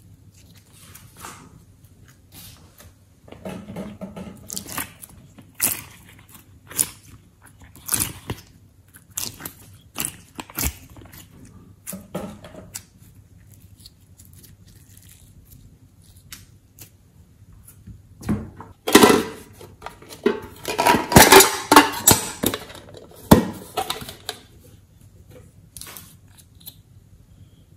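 Glossy slime being stretched, twisted and folded by hand, giving irregular sticky clicks and crackling pops, with a louder run of them about two-thirds of the way through.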